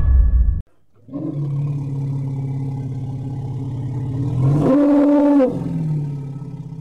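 A deep, rough, drawn-out animal roar that pulses as it holds its pitch. About five seconds in it jumps higher for a moment, then sinks back and fades.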